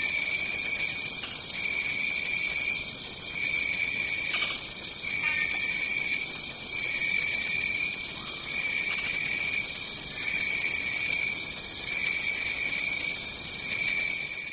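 Tropical rainforest ambience: a dense, steady insect chorus, with a continuous high trill and a lower trill that pulses on and off every second or so.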